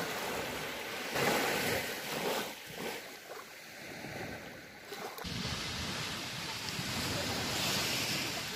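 Small waves breaking and washing up onto a sandy beach, with a louder surge of surf about a second in. About halfway through, the sound cuts abruptly to a steadier, lower rush of surf.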